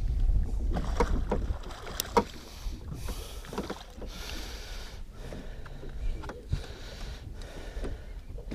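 Water splashing and lapping at the side of a boat, with scattered knocks and clicks, as a landed musky is handled in a landing net over the gunwale.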